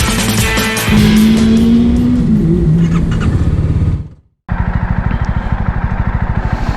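Rock intro music that fades out about four seconds in, then a brief silence. After it, a motorcycle engine idles with a rapid, even beat.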